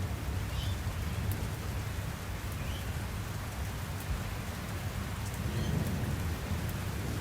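Summer thunderstorm: steady rain with a continuous low rumble of thunder underneath, swelling slightly about five and a half seconds in.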